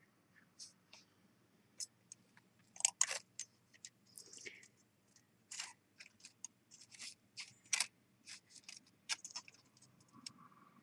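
Irregular small clicks and taps of sterling silver pieces and tools against a hard work surface as the leaf and stem are nudged and propped into position for soldering. The loudest taps come about three seconds in and again near eight seconds.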